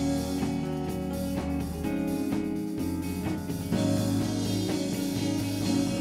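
Live band playing instrumental music with guitar, bass and drums, sustained chords changing every second or two and no vocals.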